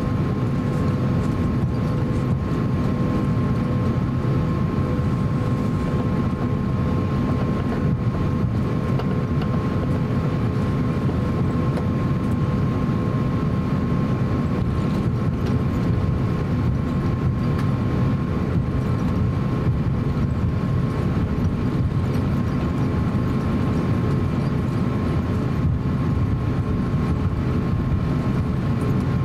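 Cabin noise of an Airbus A350-900 taxiing, with Rolls-Royce Trent XWB engines at low taxi thrust: a steady low rumble with a steady high whine on top.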